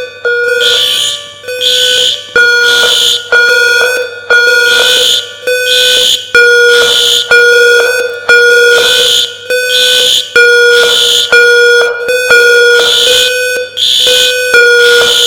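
Building fire alarm sounding in short repeated blasts, each a low horn tone with a higher-pitched tone pulsing over it.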